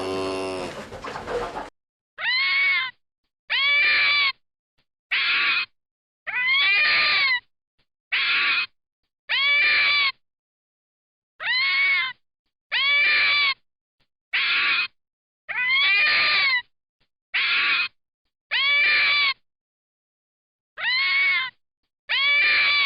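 A cat meowing over and over: about fourteen short meows, each rising and then falling in pitch, with silent gaps between them. The tail of a cow's moo ends in the first couple of seconds.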